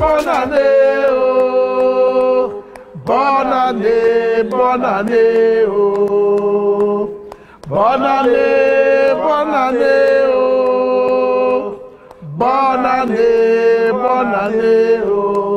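A cappella male vocal group of four men singing in harmony, holding long notes, in four phrases with brief breaks between them.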